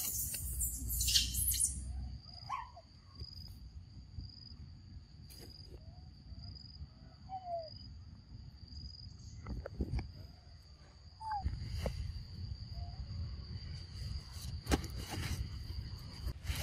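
An insect holds a thin high note, pulsing in short regular chirps and later running unbroken, over a low rustle. A burst of rustling and crackling marks the first two seconds, and a few faint short squeaks and clicks come and go.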